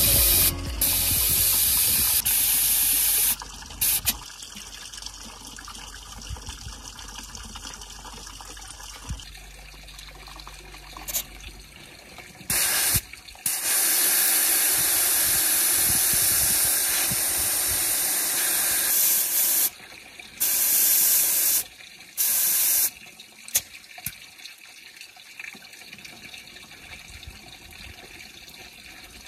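Compressed air hissing out of a 4x4's General Grabber all-terrain tyre through the valve stem as the tyre is aired down for off-road driving. It comes in on-and-off bursts, the longest about six seconds in the middle, with quiet gaps between.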